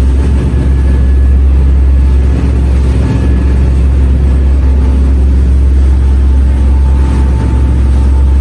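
A vehicle's engine running steadily while underway, a continuous deep rumble with no clear changes in pace.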